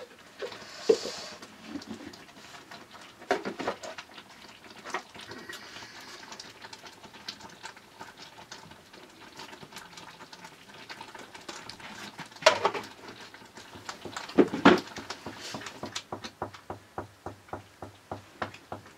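Metal ladle stirring and scraping in a pan on a wood-fired mud stove, with many small clicks of metal on metal and a few louder clatters of utensils; near the end the ladle taps the pan in a steady run of about three clicks a second.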